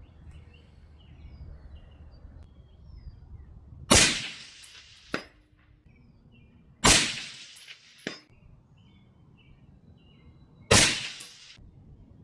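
Three shots from a suppressed AR-15 rifle in 5.56/.223, about three seconds apart, each a sharp report with a short tail.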